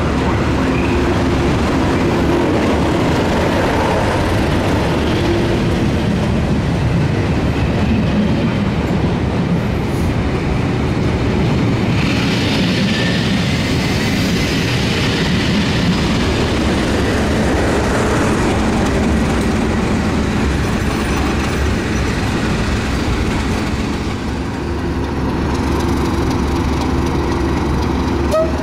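British Rail Class 37 diesel locomotives, English Electric V12 engines, hauling a test train past: a loud engine drone as the leading locomotive goes by, then the rumble and rattle of the coaches' wheels on the rails with a brighter hiss in the middle. After a short dip, a Class 37 engine drones again near the end.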